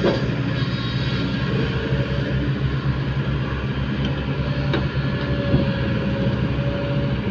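Diesel engine of a heavy tracked earthmoving machine running steadily, with a couple of faint knocks about halfway through.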